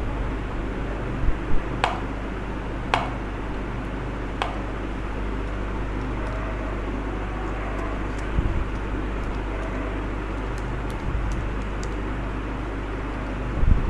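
Steady electrical hum and fan-like background noise on a computer microphone, with a few sharp clicks in the first few seconds and fainter taps later from mouse clicks and typing on a computer keyboard.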